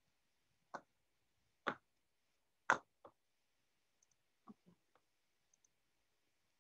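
Three sharp clicks about a second apart, followed by several fainter clicks and ticks.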